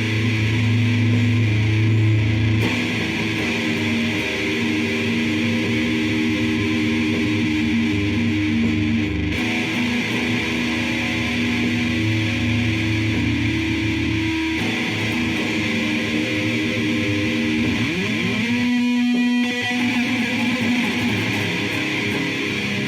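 Sludge-style noise music on heavily distorted electric guitar: loud, sustained droning chords, with sliding pitch bends and a brief dip in the sound about three-quarters of the way through.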